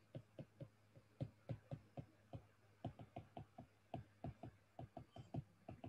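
Faint, irregular clicks of a stylus tapping a tablet screen while handwriting, several a second.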